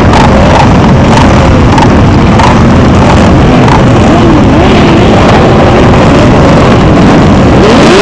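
A group of motorcycles pulling away one after another: several engines running and revving over each other, their pitches rising and falling. The recording is overloaded and stays at full loudness throughout.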